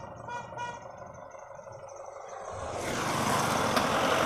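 Low, quiet rumble inside a moving truck's cab, with a few short high beeps early on. Then an SUV drives close past on the road, its engine and tyre noise rising to a loud rush.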